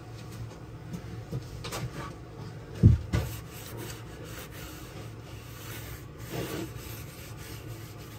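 Hand scraping and rubbing on a hard surface, with scattered light knocks and two dull, heavier knocks close together about three seconds in.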